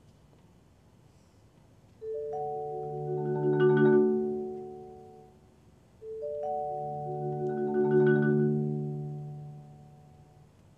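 Marimba and vibraphone duet playing two long sustained chords, the first about two seconds in and the second about four seconds later. Each chord swells to a peak and then dies away.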